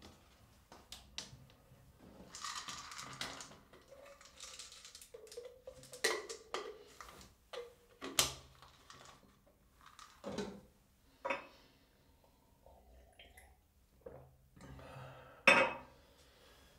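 Bathroom mirror cabinet being opened and the medicine bottles, jars and boxes on its glass shelves handled: irregular light clinks, taps and knocks with short rustles in between.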